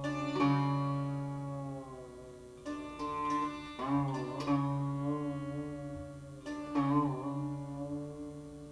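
Sitar played slowly in separate plucked phrases, each note ringing out long, with the pitch bent by pulling the string around four and seven seconds in. A steady low drone sounds under the phrases.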